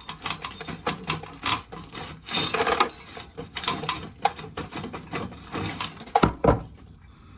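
Dried corn being shelled by hand: kernels rasped off the cob in a quick, irregular run of rubbing and clicking, with two heavy thumps about six seconds in.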